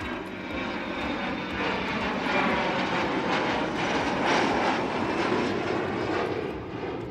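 An airplane passing overhead: its engine noise swells to a peak about four seconds in and then fades away.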